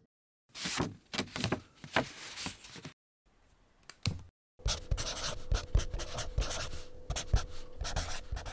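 Pen scratching on paper in two stretches: a couple of seconds of quick strokes, a short pause, then a longer run of scratching with sharper taps over a faint steady hum.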